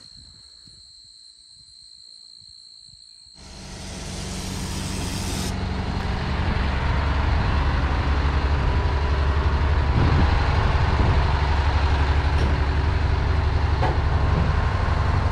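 After a few quiet seconds, a heavy semi truck's diesel engine comes in loud and close, with a short hiss at first. It swells over a few seconds, then runs steadily with a deep, even rumble.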